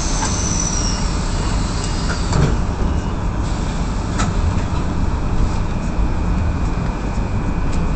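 Inside an electric suburban passenger train: steady cabin rumble and hum as it stands at a platform and then starts to pull away, with a few sharp clicks.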